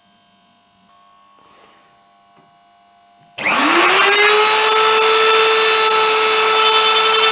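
Handheld electric router switched on about halfway through, spinning up with a quick rising whine and then running steadily at full speed.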